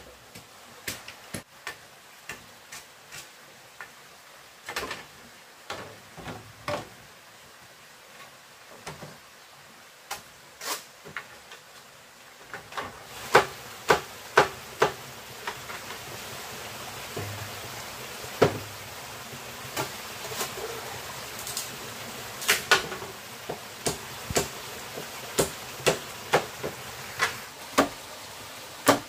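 Irregular sharp knocks and taps, sparse at first and coming more often from about halfway through, when a steady hiss rises beneath them.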